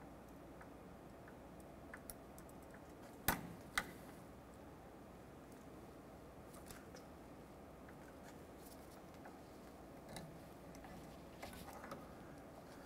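Faint metallic clicks of needle-nose pliers gripping a steel cotter pin in a ball joint's castle nut to bend its tab over, with two sharper clicks a little over three seconds in and a few lighter ticks near the end.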